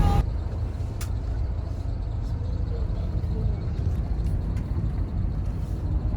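A motor vehicle running steadily, a continuous low rumble of engine and road noise, with a few faint, brief clicks.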